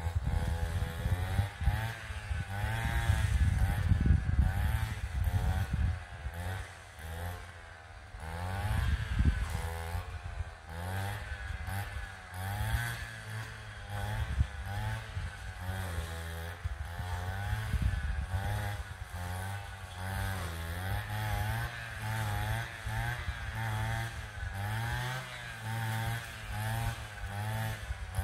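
An engine running, its pitch rising and falling over and over, about once a second, with a loud, uneven low rumble underneath.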